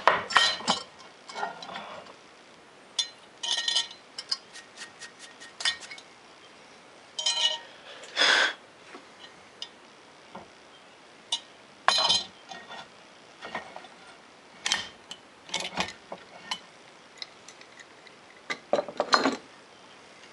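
Irregular clinks, clatters and scrapes of metal parts being handled: a drilled aluminium block, a steel C-clamp and an angle plate knocking on a drill press table strewn with aluminium chips. Short bursts a second or so apart, with no machine running between them.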